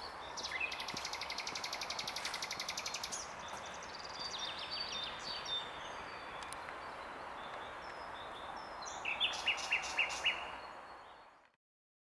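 Several songbirds singing over a steady background hiss: a long fast trill in the first few seconds, a run of short notes around four seconds in, and five loud repeated notes near the end, then the sound fades out.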